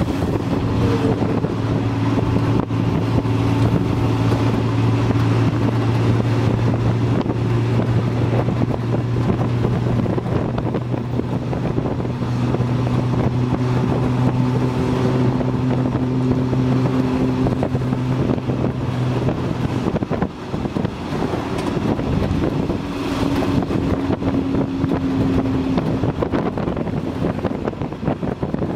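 Tuk-tuk engine running steadily under way, heard from the open passenger cab with wind and road noise. The engine note drops off about two-thirds of the way through and then picks up again.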